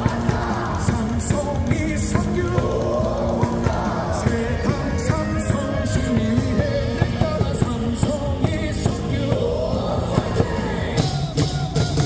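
Loud rock-style cheer music with a steady drum beat, played over a ballpark's loudspeakers, with singing and yelling.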